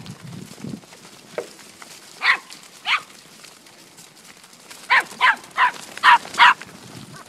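Pumi puppy barking in short, sharp yaps: two a couple of seconds in, then a quick run of five near the end.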